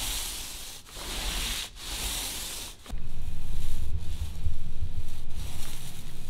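Paint roller rolling on a wall, first in about three short passes with too little paint: a dry, sticky, hissy rasp that shows the roller needs dipping again. About three seconds in, a well-loaded roller takes over, louder and wetter and smoother, the sound of enough paint going on.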